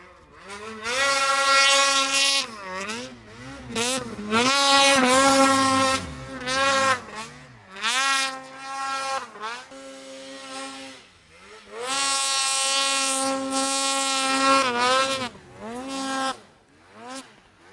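A sled's engine revving hard in deep powder. Its pitch climbs, holds high for a second or two, then drops, over and over, with the longest pull from about twelve to fifteen seconds in.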